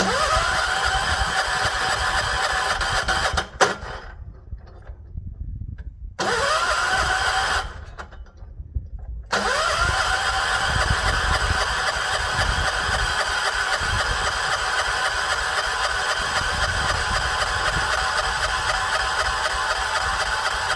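The electric starter of a 1970s John Deere 212 garden tractor cranks the cold engine in three tries: a short one, a very short one, then a long one of about eleven seconds. Each try opens with a rising whine that settles into a steady churn. The engine never catches; the tractor is cold-soaked at −6 °F with its choke frozen shut.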